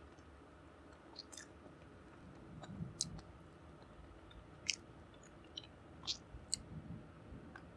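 Faint close-miked chewing, with several sharp mouth clicks and smacks scattered through it.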